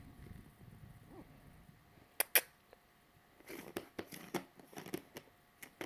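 A treat jar's screw-on lid being worked by a cat's paws: two sharp clicks a little over two seconds in, then a run of smaller clicks and knocks.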